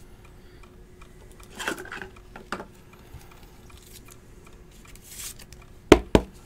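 Trading cards and a rigid clear plastic card holder being handled on a table: faint sliding and rustling, then two sharp clicks in quick succession near the end.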